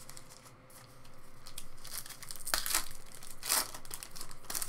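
Foil wrapper of a Panini baseball card pack being torn open and crinkled by hand, with the loudest rips about two and a half and three and a half seconds in.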